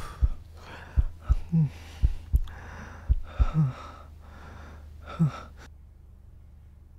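A man breathing hard and gasping, out of breath, with a heavy voiced breath every couple of seconds and a few low thumps of breath. The sound drops away about five and a half seconds in.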